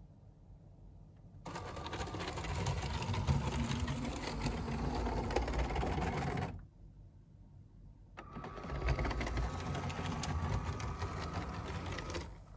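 LEGO train motor driving a small metro train along plastic track, a whirring, rattling run with a steady whine. It runs for about five seconds, stops for about a second and a half, then runs again for about four seconds before stopping.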